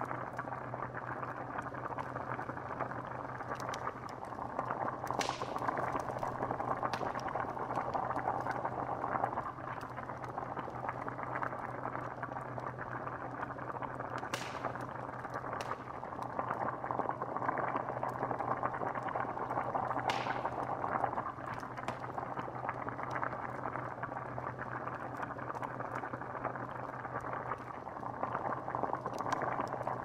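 A cauldron of liquid bubbling steadily, with a few sharper pops breaking through and a steady low hum beneath.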